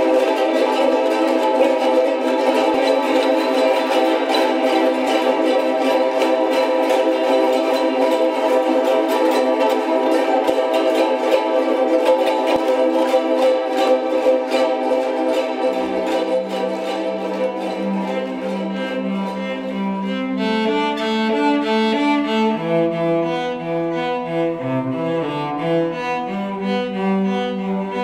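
Several ukuleles strummed together in a steady rhythm. About sixteen seconds in, a cello enters with long bowed low notes. From about twenty seconds the strumming fades and the cello carries a melody of separate bowed notes.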